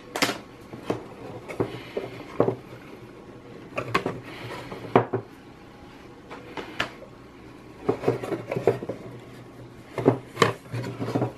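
Laser-cut MDF panel box being taken apart by hand: panels lifted, slid and set down, with scattered light wooden knocks, clicks and rubbing, a few in quick clusters near the end.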